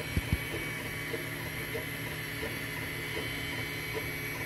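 Anycubic Mega Zero 3D printer running near the end of a print: its fans hum and whine steadily while the stepper motors move the print head in short repeated buzzing moves. Two sharp knocks sound just after the start.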